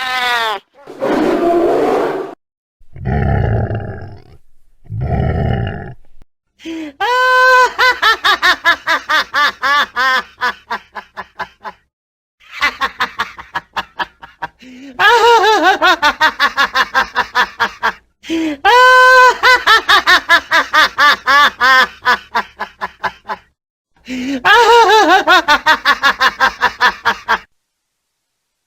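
Evil clown laughter sound effect: a run of separate takes of maniacal cackling, each a rapid string of 'ha' pulses, with brief gaps between takes. Near the start come two short, low, growl-like sounds.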